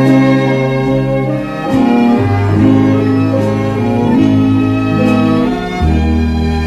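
Instrumental break in a Thai luk krung ballad with no singing: bowed strings carry the melody in held notes over a moving bass line.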